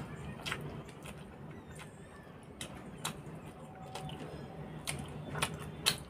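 Close-up mouth sounds of a person eating rice and curry by hand: scattered sharp wet clicks and smacks of chewing, a few every second or so, the loudest near the end, over a steady low hum.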